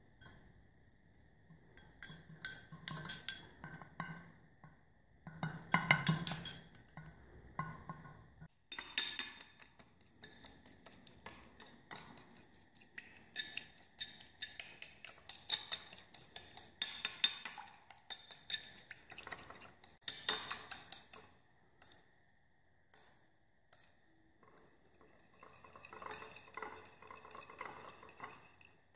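Metal spoon stirring liquid in a small ceramic bowl, clinking and scraping against the bowl in irregular runs of sharp clicks, with a short lull a little past the middle.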